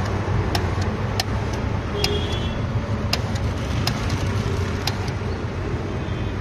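Soda fountain dispenser pouring fizzy mint (pudina) soda from its nozzle into a paper cup: a steady hiss with scattered small ticks, over a continuous low rumble of road traffic.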